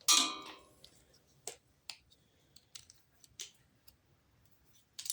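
Hand work on a small engine during carburetor reassembly: a short, loud pitched sound at the start, then scattered light clicks and taps as parts and the fuel line are handled.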